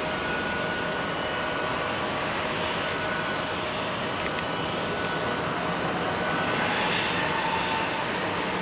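Airbus A330 jet engines running steadily: a broad rush with faint whining tones, swelling a little about seven seconds in.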